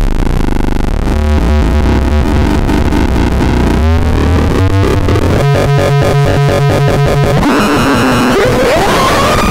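Circuit-bent noise sequencer playing harsh electronic tones: a buzzing low drone with stepping pitches, breaking about halfway into a fast rhythmic stutter of pulses, then turning to hiss with a tone that glides up and back down near the end.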